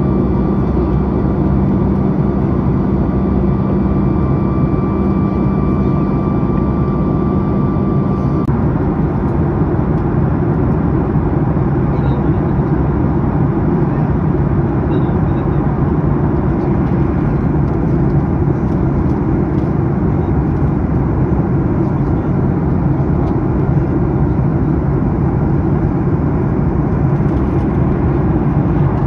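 Steady cabin noise of a Boeing 737 MAX 8 in cruise, heard from a window seat over the wing: the CFM LEAP-1B engine and airflow making an even, loud rush. About eight seconds in, the steady humming tones drop out at a cut, leaving a smoother rush.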